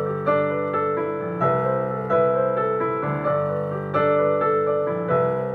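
Piano playing an instrumental passage between sung verses, a new chord or note struck every half second to a second.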